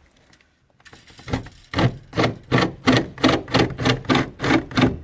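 A saw cutting through a shed wall to open a new hive entrance, starting after about a second and going in regular strokes, about three a second.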